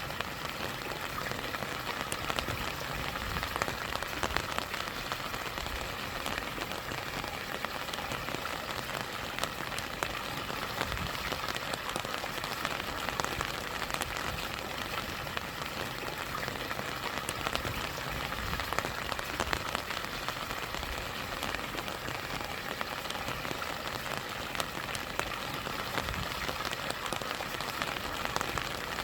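Steady rain with many sharp individual drop ticks, over the continuous rush of a small stream and mini waterfall.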